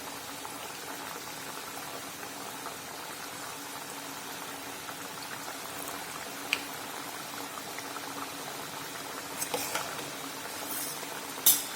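Bajra vadas deep-frying in hot oil: a steady bubbling sizzle. A few sharp clicks come through, the loudest just before the end.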